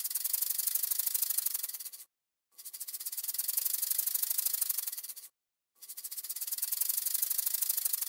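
Rattlesnake buzzing its tail rattle: a rapid, high buzz that breaks off twice for about half a second, near two and five seconds in, then starts again.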